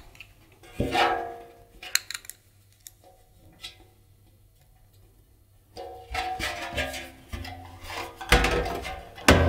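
Sheet-metal heater cover on the back of a tumble dryer being fitted: a ringing metal knock about a second in, then after a quiet spell, scraping and knocking of metal with ringing overtones as screws are driven in by screwdriver, loudest near the end.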